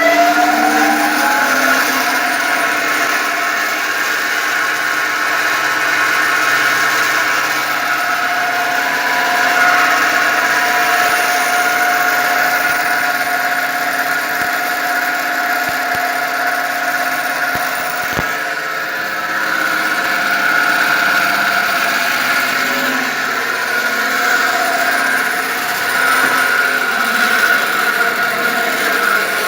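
Old Swedish-made bandsaw's large electric motor and heavy steel wheels finishing their spin-up in the first second or so, rising in pitch, then running steadily at speed with a loud whine.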